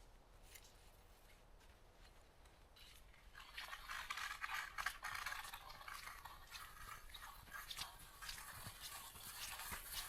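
Crunching, rustling footsteps with many small crackles, starting about three seconds in and carrying on.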